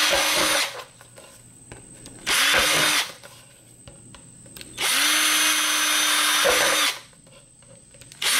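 Power drill with a quarter-inch bit boring holes through a thin plastic coffee canister. The motor runs in separate bursts, each spinning up quickly and cutting off: one ends under a second in, a short one follows around two and a half seconds, a longer two-second run comes in the middle, and another starts at the very end.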